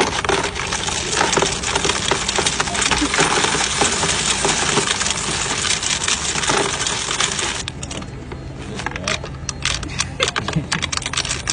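Loose coins clattering as they feed into a coin-counting kiosk's tray and are counted. A dense rattle of many coins thins to scattered single clinks about seven and a half seconds in.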